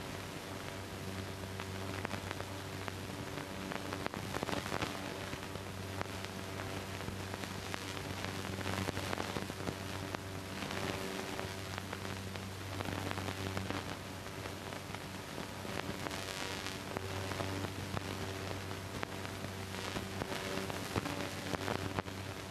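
Steady crackling hiss with a low hum underneath, the surface noise of an old optical film soundtrack.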